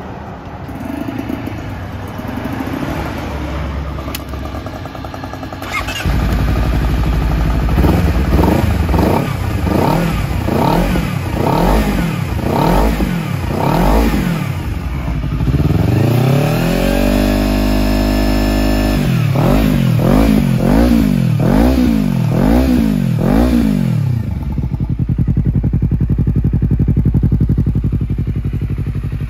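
Honda CBR250RR (MC51) parallel-twin engine running through an Akrapovič slip-on muffler. It idles, then is revved in a string of quick blips about one a second, held high for a few seconds, blipped several more times, and settles back to a steady idle near the end.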